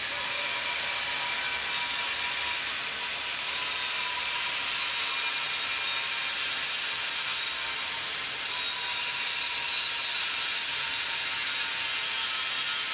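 Angle grinder grinding steel plate: a steady, loud grinding hiss with a constant motor whine underneath.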